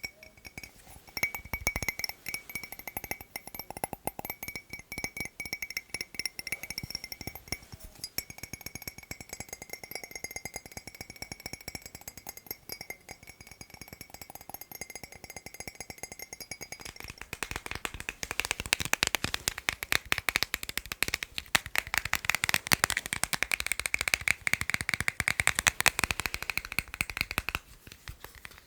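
Fast tapping on hard objects, a dense stream of quick taps. For the first two-thirds the tapped object rings with a clear tone under the taps; then the tapping turns denser, louder and brighter.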